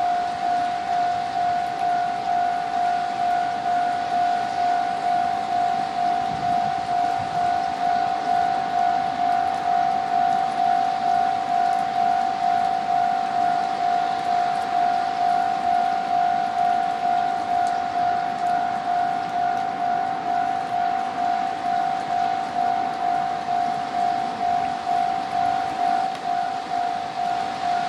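Japanese railway level-crossing warning bell ringing: one high electronic tone pulsing evenly about twice a second, signalling the approach of a train.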